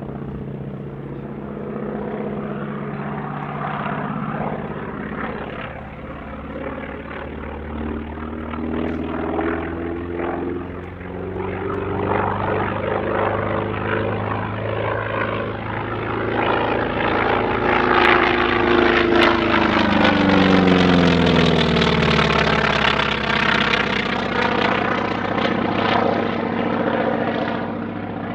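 North American T-28 Trojan's radial engine and propeller running at display power as the aircraft flies past, growing louder to a peak about two-thirds of the way in, with the engine note dropping in pitch as it goes by.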